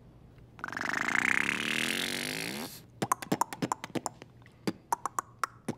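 Beatboxing mouth sounds: a buzzing tone held for about two seconds and rising in pitch, then a quick, irregular run of sharp clicks and pops.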